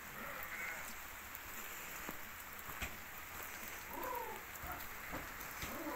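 Steady rain falling, drops ticking on corrugated metal sheeting, with a sheep bleating about four seconds in.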